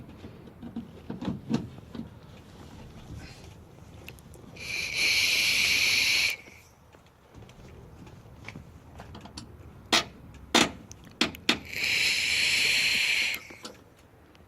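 Two loud bursts of high hiss, each about a second and a half long and about seven seconds apart, with a few sharp clicks between them.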